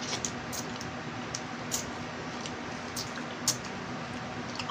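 Small boiled crabs eaten by hand: scattered sharp cracks and clicks of crab shell being broken and chewed, the loudest about three and a half seconds in, over a steady low hum.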